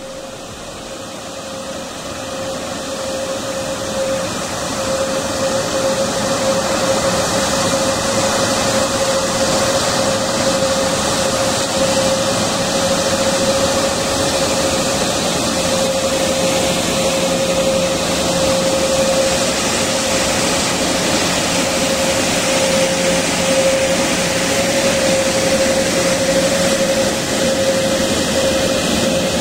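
Airbus A340-600 jet engines running at idle: a steady rushing noise with a constant whine. It grows louder over the first few seconds, then holds steady.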